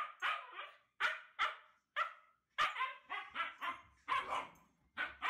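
Husky barking excitedly in a quick string of short, sharp barks, about two or three a second with brief pauses between them.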